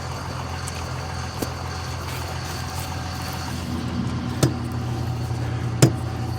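A vehicle engine idling steadily, a low even drone. A few sharp metallic clicks come over it, two of them in the second half, the loudest near the end.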